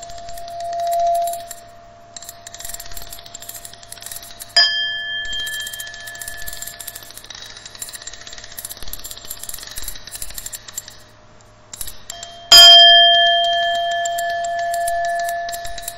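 Experimental noise soundtrack: a steady low hum and hiss under sustained ringing tones, with two sharp metallic bell-like strikes that ring on. The second strike, about three-quarters of the way through, is the louder.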